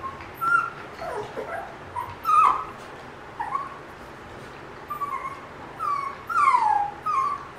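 Shih Tzu puppy whining and yipping in a string of short, high cries that each fall in pitch, with the longest drawn-out whine near the end. It is whining at a plush teddy bear held up out of its reach.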